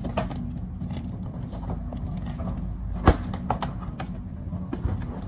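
Close handling noise as someone climbs up to reach a high shelf: scattered knocks and creaks and fabric rubbing near the microphone, with one sharp knock about three seconds in, over a steady low hum.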